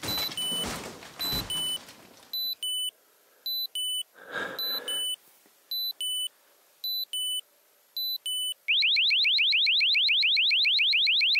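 Bumping and scraping from under the RV floor, over a repeating pattern of short high double beeps. About nine seconds in, a loud electronic alarm goes off: a siren of rapid rising sweeps, about seven a second.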